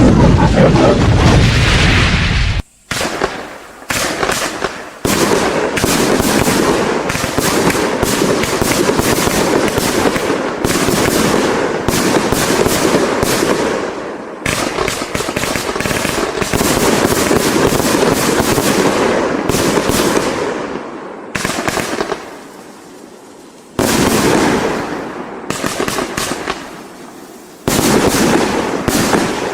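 A 115-shot consumer firework cake of 25 and 30 mm calibre firing in rapid succession: a dense stream of launch thumps and crackling bursts. It slackens briefly a few times in the latter part before picking up again.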